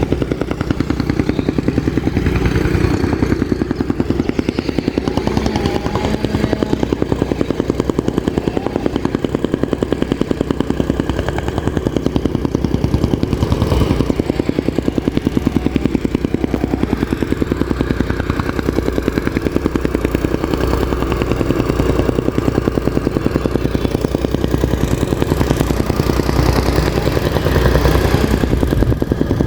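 Gasoline-engine soil compactor running steadily, its engine and compacting action making a rapid, even pulsing.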